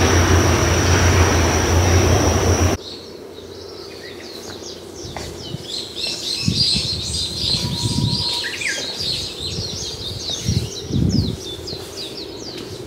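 A loud steady rushing noise that cuts off abruptly about three seconds in, followed by a flock of small birds chirping busily in quick high notes, with a few soft low thumps among them.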